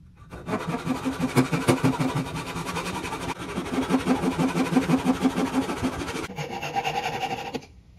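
Handsaw cutting into a wooden tenon, with quick, even back-and-forth strokes.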